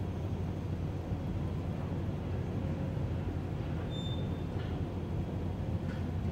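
Steady low background rumble, with one short high-pitched chirp about four seconds in.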